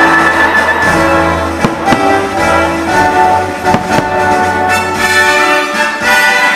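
Orchestral fireworks-show music with brass, with a few sharp firework bangs about two and four seconds in.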